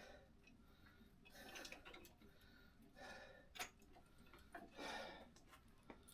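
Near silence with a few faint clicks and soft scuffs of tools and parts being handled, the sharpest click about three and a half seconds in.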